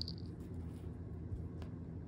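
Quiet room tone with a steady low hum. A high jingle fades out in the first moments, and a faint tick comes a little past the middle.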